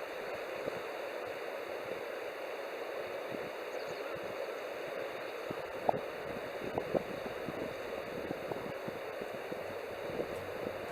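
Campfire burning with a steady rushing hiss and scattered crackles and pops of the burning wood, one sharper pop about six seconds in.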